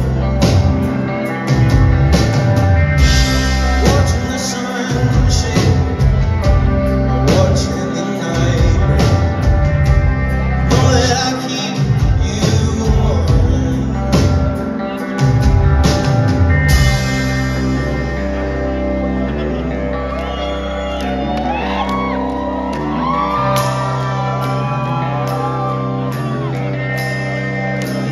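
Live rock band playing through a hall PA: drums, bass and electric guitars with a lead singer. About two-thirds of the way through, the driving drum beat drops away, leaving held bass notes and guitar chords under the vocal.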